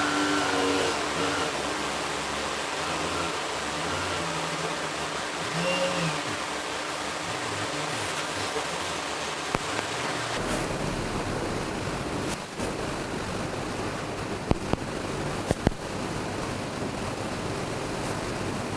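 Famax FM35 tubular roller-blind motor running with a steady hiss-like drone as it drives the blind. The sound changes about ten seconds in, followed by a few sharp clicks.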